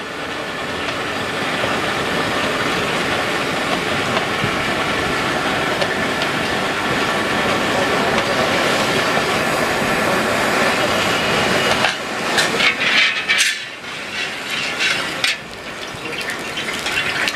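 Steady roar of the fire under a large black iron kadai of heating oil. From about twelve seconds in it gives way to irregular splashing and gurgling as liquid is poured into the pan and swirls.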